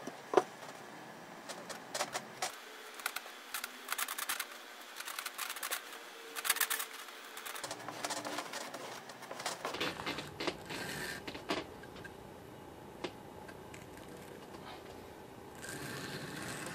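A wooden rammer tamping casting sand into a wooden flask: a run of short, sharp knocks, the loudest about half a second in. After that, a wooden board is scraped across the top to strike the sand level.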